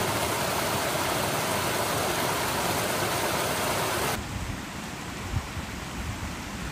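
Small mountain stream cascading over rocks, a steady rush of water. About four seconds in it cuts abruptly to a quieter trickle with a few brief low thumps.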